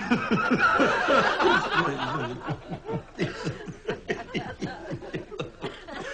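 A man and a woman laughing helplessly, a fit of giggles: the laughter is densest in the first couple of seconds, then goes on as a run of short, rapid laugh pulses.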